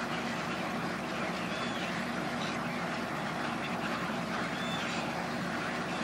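Dense, steady din of a large egret roost: thousands of egrets calling together in a continuous mass of croaks and squawks, with a low steady hum underneath.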